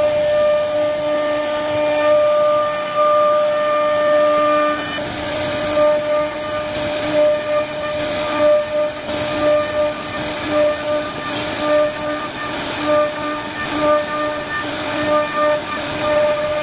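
CNC wood carving router's spindle whining at a steady pitch while its cutter carves a relief pattern into solid wood. From about five seconds in, the cutting noise swells and eases in regular pulses, a little faster than once a second.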